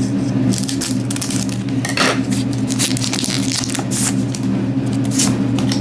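A foil Pokémon booster pack being cut open with scissors and crinkling as it is handled, in short irregular crackles. A steady low hum runs underneath.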